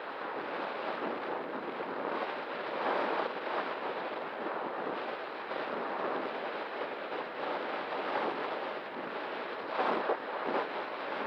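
Steady rushing wind noise over the microphone, with a faint steady tone underneath.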